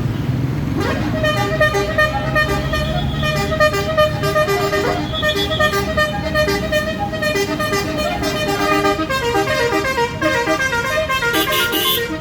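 A bus's basuri telolet horn, a multi-note musical air horn, playing a tune of stepped notes that starts about a second in, over the low rumble of the bus engine running. A brief hiss sounds near the end.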